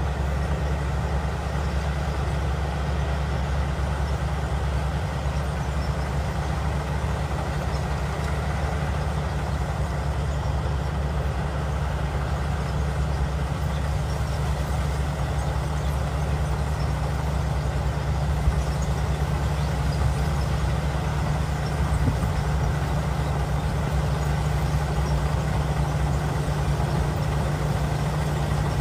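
Brand-new rice combine harvester's diesel engine and machinery running steadily with a deep, even hum, with a couple of faint knocks in the second half.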